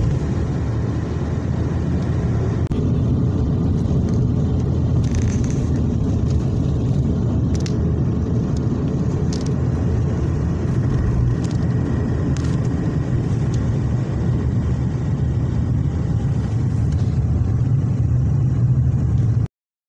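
Car driving on an asphalt highway, heard from inside the cabin: a steady low rumble of engine and tyre noise with a few faint ticks. It cuts off abruptly just before the end.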